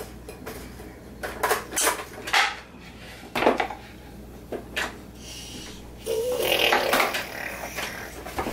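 Wooden puzzle pieces knocking and clattering against a plastic high-chair tray and wooden puzzle board as a toddler handles them: a string of separate knocks, busier about six seconds in.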